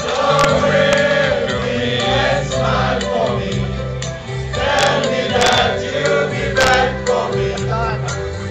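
A group of men singing together, one through a microphone, over an amplified backing track with a steady stepping bass line.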